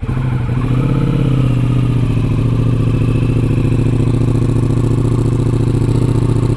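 A Ducati Pikes Peak motorcycle engine starting up. It catches at once, and its speed sinks over the first second or so into a steady idle.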